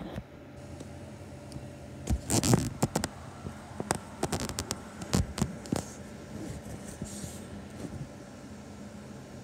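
Rustling, clicks and soft knocks from a hand puppet and blanket being moved and the phone being handled, bunched together in the middle seconds, over a steady low hum.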